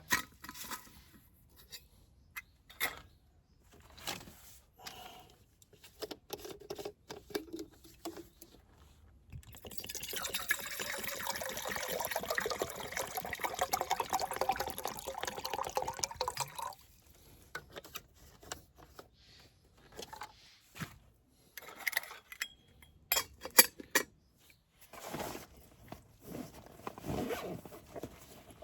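Scattered clicks and knocks of gear being handled, then liquid pouring steadily for about six seconds, then more clicks and knocks.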